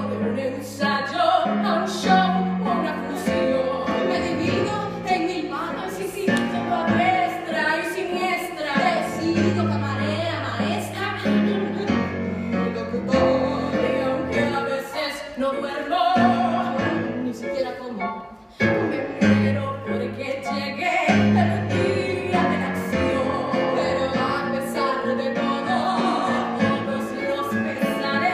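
Piano accompaniment with a woman singing over it in Spanish; the music drops out briefly about two-thirds of the way through.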